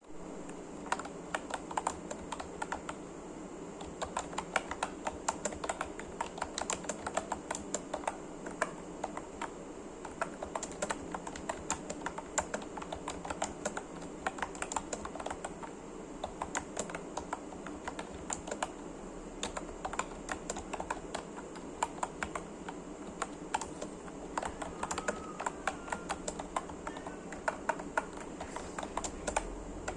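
Forev computer keyboard being typed on continuously, an irregular run of key clicks several times a second over a steady low hum.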